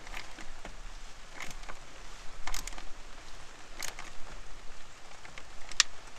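Plastic EVAP purge valve and its hose fitting being pushed and worked by hand, giving a handful of sharp clicks and taps with rustling in between as it is forced onto a fitting that won't seat well.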